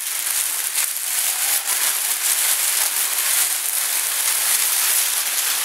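Thin plastic bag crinkling and rustling without a break as it is dragged up and off a speaker cabinet, a dense rush of small crackles.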